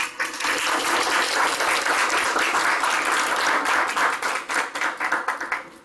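Audience applause, starting at once and thinning out near the end.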